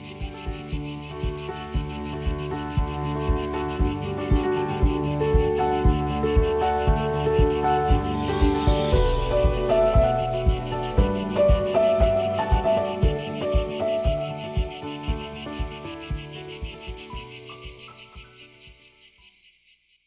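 A loud, rapidly pulsing cicada chorus laid over outro music with a steady beat and a melody, all fading out over the last few seconds.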